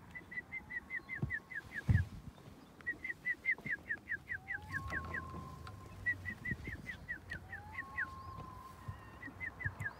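Bald eagle calling: four runs of quick, high piping notes, each run ending in a few falling notes. A low thump comes about two seconds in.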